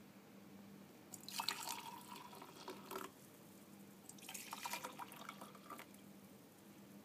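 Hot water poured into a colour-changing ceramic magic mug in two pours of about two seconds each, the first starting about a second in and the second about four seconds in.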